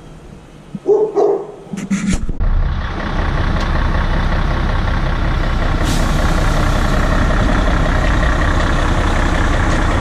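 A dog barks a few times. Then, about two seconds in, the diesel engine of a 60-ton Grove mobile crane starts up loud and steady, with a short hiss about six seconds in.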